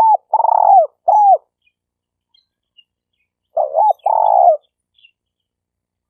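Spotted dove cooing in the stuttering 'gagap' style: two phrases, one at the start and another about three and a half seconds in, each a few short clipped coos running into a longer coo that falls in pitch at its end.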